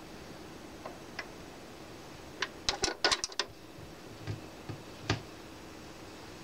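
Turntable tonearm being handled and its stylus set down on a spinning 7-inch single: scattered clicks and taps, with a quick cluster about halfway through and a couple of soft thumps later, over a faint steady hum.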